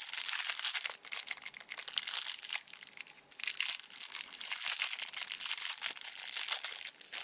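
Thin plastic toy wrapper being crinkled and torn open by hand: a dense, continuous crackle that pauses briefly about a second in, around three seconds in, and near the end.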